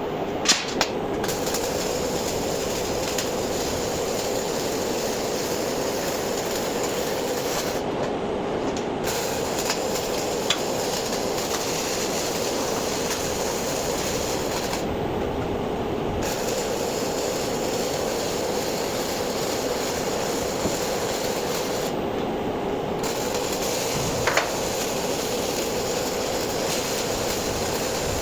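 MIG welder arc running a continuous bead on steel bar: a steady frying, crackling hiss with a few sharp pops.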